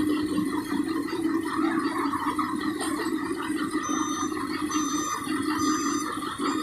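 Excavator's diesel engine and hydraulics running steadily, with a hum that dips briefly now and then.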